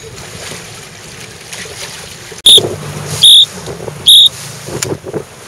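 A whistle blown in three short, loud, shrill blasts about a second apart, over steady wind and water noise.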